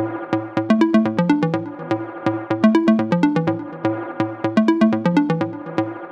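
Electronic background music: a melody of short, quickly repeating notes over a steady bass pattern with an even beat.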